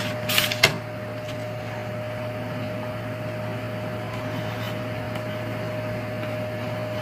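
Steady low electrical hum with a constant thin whine over it. In the first second there are a few short rustles and clicks as the LCD writing tablet is handled and switched on.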